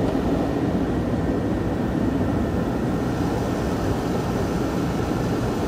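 Steady rush of air from a 2003 GMC Yukon's cabin blower fan, switched on as an electrical load to test the new alternator, over the idling V8, heard inside the cab.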